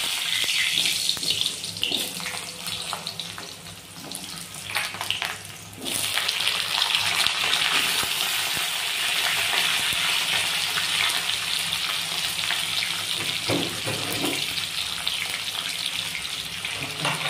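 Peeled potato halves deep-frying in hot mustard oil in an aluminium kadai: a steady sizzle that grows louder about six seconds in as more pieces go into the oil. A couple of soft knocks a little after halfway.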